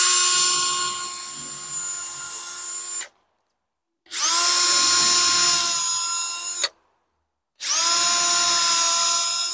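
Electric drill boring three shelf-pin holes into a cabinet board, one run per hole, each lasting two to four seconds with a steady motor whine and cutting off sharply between holes. A scrap-wood stop on the bit sets the hole depth.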